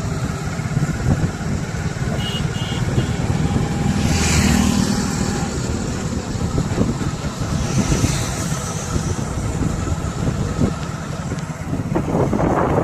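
Road traffic: vehicle engines rumbling and passing by, with two short high beeps about two seconds in.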